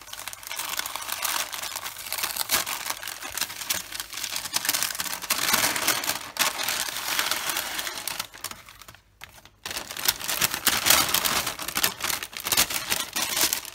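Brown kraft paper wrapping crinkling and rustling as hands unfold and crumple it, a dense run of quick crackles with a short pause about eight seconds in.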